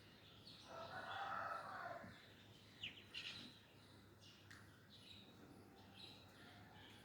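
Birds calling in the morning: short high chirps scattered throughout, with a louder, harsher call lasting about a second shortly after the start.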